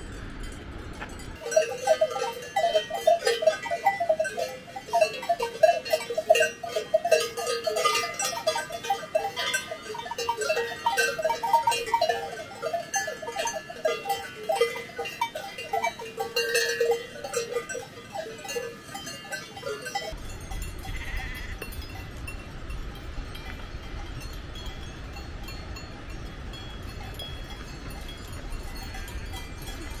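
Bells on a herd of grazing cows clanking and ringing in a dense, irregular jangle, starting about a second and a half in and stopping about twenty seconds in. A quieter steady low rushing follows.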